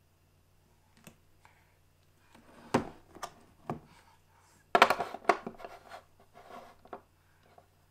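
Small plastic toy dolls knocking and clattering against a plastic dollhouse, a toy cradle and the tabletop as they are handled: irregular clicks and taps, with a quick flurry of clatter about five seconds in.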